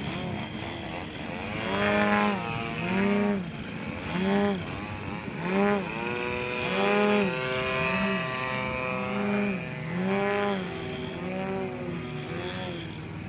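ZDZ 180 two-stroke gasoline engine with canister mufflers on a giant-scale RC aerobatic plane, running in flight. Its note rises and falls in pitch over and over, about once a second, as the plane manoeuvres.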